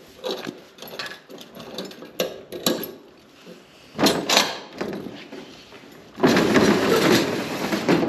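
Keys jingling and a padlock being worked on a metal roll-up storage-unit door, with light clicks and a louder clatter about four seconds in. A little after six seconds the door rolls up with a loud, steady rattle.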